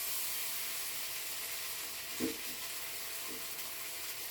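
Sausages sizzling as they fry in a pan, a steady hiss, with a single light knock a little over two seconds in.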